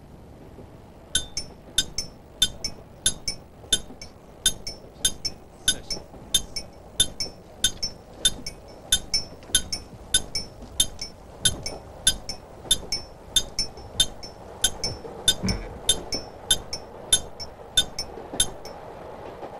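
Railway level crossing warning bell ringing, struck about two times a second, starting about a second in.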